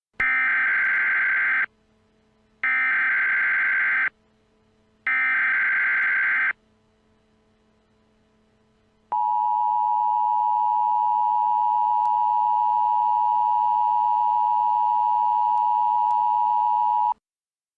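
Emergency Alert System broadcast opening: three short bursts of SAME header data, each about a second and a half long, then after a pause the two-tone EAS attention signal, held steady for about eight seconds. The sequence signals that an emergency alert message is about to be broadcast.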